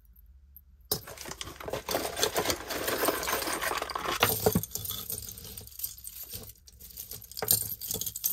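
Metal costume jewelry jangling and clinking as a pile of chains, necklaces and pendants is rummaged through and a necklace is pulled free, starting about a second in.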